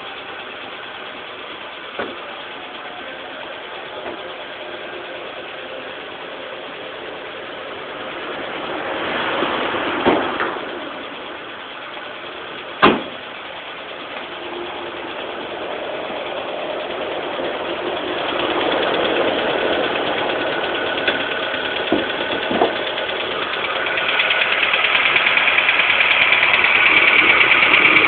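Mitsubishi Colt Plus engine running after a cold start, with a belt-like noise in it that the owner takes for a drive belt. There are a few sharp clicks, the loudest about halfway through, and the noise grows louder, strongest in the last few seconds.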